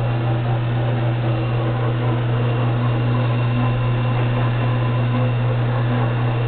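Steady, loud electric-motor hum of a 13-inch benchtop drill press running with no load.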